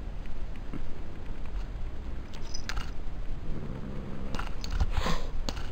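Empty plastic tub clicking and knocking as a cat pushes its head in it and pulls free, a few clicks midway and a quick cluster near the end, over a steady low rumble.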